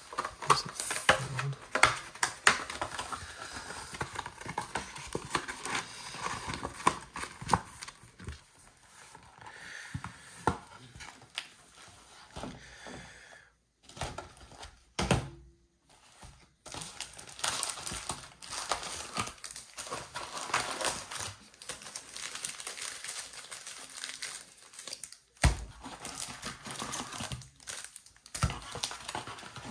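Crinkling plastic wrapping and foil trading-card packs being handled, with occasional tearing and sharp taps and clicks, pausing briefly about halfway through.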